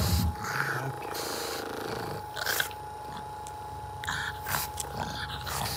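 Pug growling and huffing in short bursts at a running handheld massage gun, whose motor gives a steady hum. A loud low thump comes at the very start.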